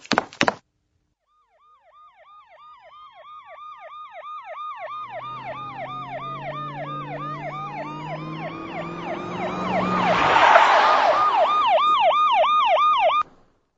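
Emergency vehicle sirens of police cars and an ambulance coming closer: a fast yelping siren with slower wailing sirens sweeping over it, growing steadily louder to a peak with a rush of noise about ten seconds in, then cutting off suddenly near the end. A couple of quick footsteps sound at the very start.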